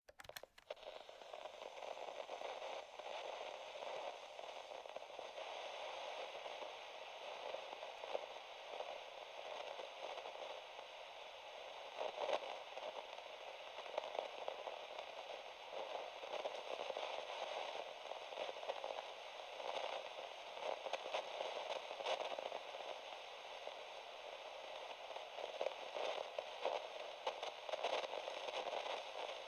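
Radio static: a steady, thin hiss that fades in at the start, speckled with scattered crackles and pops, a few of them sharper and louder.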